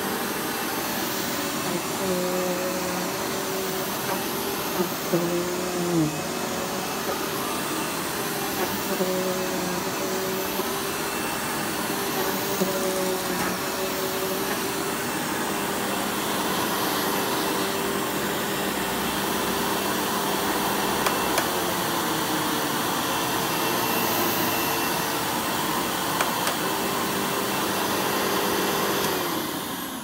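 Cirrus Professional Grade upright vacuum cleaner running on carpet with a steady whir, its motor pitch shifting a little as it is pushed back and forth. It is switched off near the end and the motor winds down.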